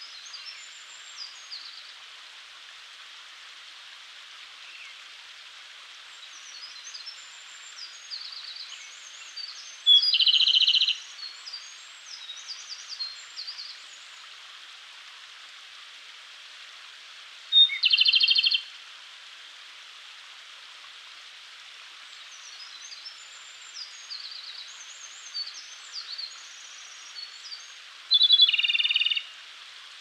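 Japanese robin (Erithacus akahige) singing: three loud song phrases several seconds apart, each a short high note running into a rapid rattling trill about a second long. Between phrases there is a steady forest hiss and fainter, higher chirps.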